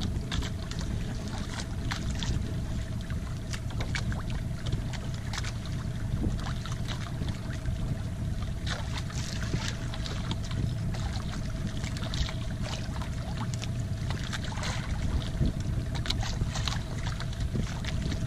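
Small outrigger fishing boat (jukung) at sea: a steady low rumble with a constant hum running through it, and water splashing and slapping against the hull again and again.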